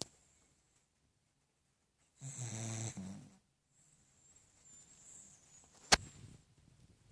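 Dog snoring: one low, rattling snore about two seconds in, then a quieter breath. A single sharp click near six seconds in.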